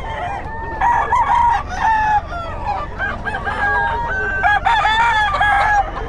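Several roosters crowing, their crows overlapping one after another.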